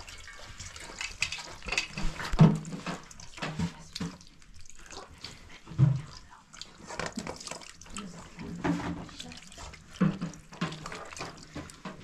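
Water poured in a thin stream from a plastic jug, splashing over a raw whole chicken in a pan as hands rub and rinse it. A few louder bumps and splashes come about two and a half, six and ten seconds in.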